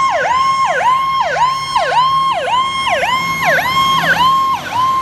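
Fire truck's electronic siren sounding: a steady high tone broken about twice a second by a quick dip down and back up.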